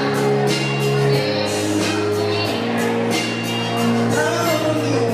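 A child singing into a handheld microphone over a pop backing track with a steady beat.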